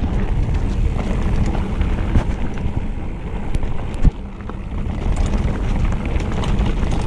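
Mountain bike rolling fast down a dirt trail: a steady low rumble of wind buffeting the microphone and tyres on the ground, with small clicks and rattles from the bike and one sharp knock about four seconds in.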